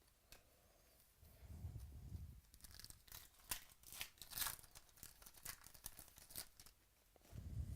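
Faint tearing and crinkling of a foil trading-card pack being ripped open and handled, a run of quick crackles in the middle with soft handling thuds around it.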